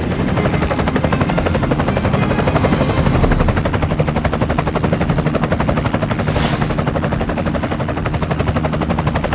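Helicopter rotor chopping fast and steadily, with a short hiss about six and a half seconds in.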